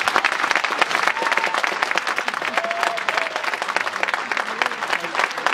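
Audience applauding: a steady round of dense clapping from many hands.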